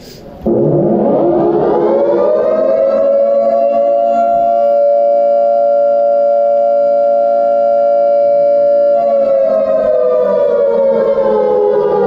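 A loud siren winds up in pitch over about two seconds, holds a steady wail, then slowly winds down over the last few seconds.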